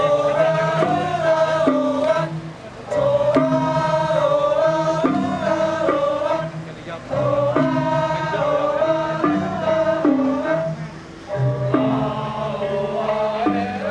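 Music with a chanted vocal melody sung in phrases of about two seconds with short breaks, over a repeating low beat.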